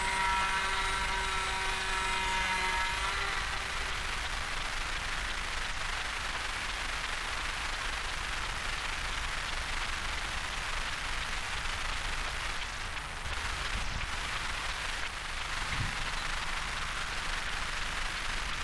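Small electric motors and propellers of an RC-converted foam glider whining at a steady pitch in flight, fading out about three seconds in. A steady rushing noise follows.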